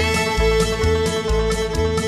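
Background bluegrass music: a bass line and plucked strings, guitar and banjo, in a steady rhythm.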